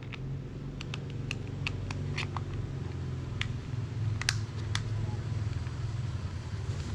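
Small sharp plastic clicks and taps from a toy remote-control mouse as its battery cover is snapped on and its remote is handled, over a steady low hum.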